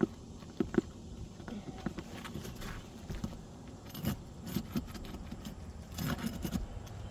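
A metal hatchet knocking and scraping against asphalt roof shingles as it pries up the shingle rows: a few sharp knocks in the first second, then scattered clicks and scrapes, with a busier flurry near the end.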